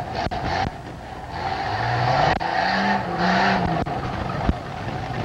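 Pickup truck engine revving as the truck drives across a dirt arena: its pitch climbs about two seconds in, holds briefly, then eases off. A few sharp knocks sound over it.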